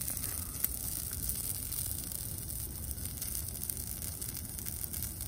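Large open fire of dry brush burning fast: a steady rushing of flames with scattered crackles and pops.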